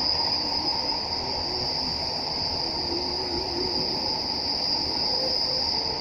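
Passenger train running, heard from inside the carriage: a steady low rumble of the ride with a continuous high-pitched insect-like trill over it, which weakens near the end.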